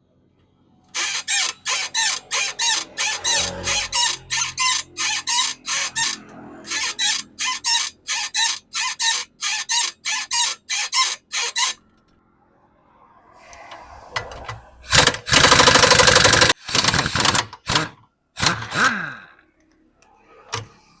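Motorcycle shock absorber being pumped up and down, giving a fast, even series of squeaking knocks, about three a second, for roughly ten seconds; this is the shock noise the repair deals with. Later a loud hiss lasts about two seconds, with a few shorter noises around it.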